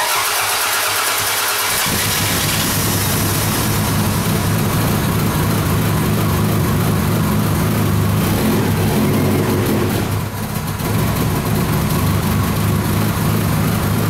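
Toyota Camry 2.2-litre four-cylinder engine starting on its new timing belt: the sound begins suddenly, and after about two seconds the engine is running steadily. Afterwards the mechanic puts the hard start down to the engine having been flooded from so much cranking.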